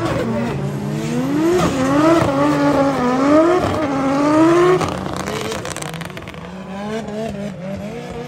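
Drift car's engine revving up and down as it throws the car through a drift, the pitch rising and falling several times, with tyre squeal. It is loudest between about two and five seconds in, then drops to a quieter engine sound.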